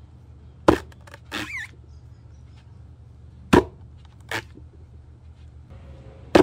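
True Temper Kelly Flint Edge axe chopping into the end grain of a tree stump: three sharp strikes about three seconds apart, with a quieter sound shortly after each of the first two as the blade is worked free.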